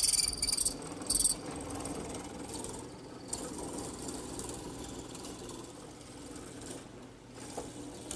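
Drill press with a hollow-square-chisel mortising attachment cutting a mortise in a wooden post, its bit boring out the wood inside the square chisel. There are two short hissing bursts in the first second and a half, then a steadier, quieter running and grinding noise as the chisel works down into the wood.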